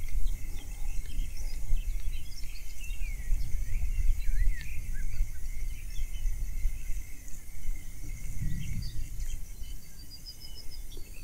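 Wind noise rumbling unevenly on the microphone, with small birds chirping and whistling throughout and a short rapid trill near the end.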